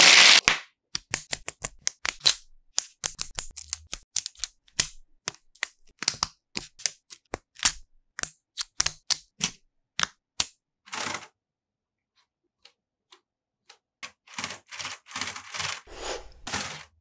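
LEGO Technic plastic parts being snapped and clicked together: a brief rush of noise as loose parts tumble at the start, then a rapid run of sharp clicks that thins out about ten seconds in, and another quick run of clicks near the end.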